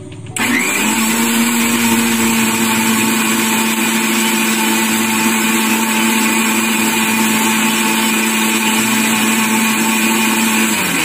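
Kitchen mixer grinder (mixie) motor running at low speed, blending egg and oil into mayonnaise with the jar lid held down by hand. It starts about half a second in with a quick rising whine, runs steadily, and winds down just before the end.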